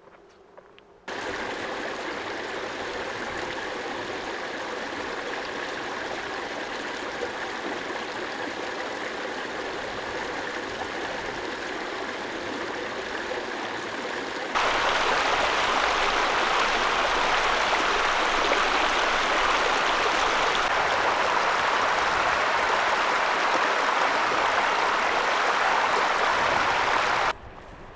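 Small mountain stream rushing over rocks, a steady sound of running water. It starts suddenly about a second in, becomes louder about halfway through, and cuts off abruptly near the end.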